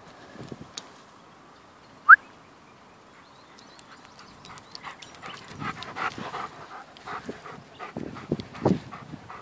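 Weimaraner panting and snuffling close to the microphone, a quick run of short breaths that grows louder over the second half. About two seconds in comes a single short rising squeak, the loudest sound here.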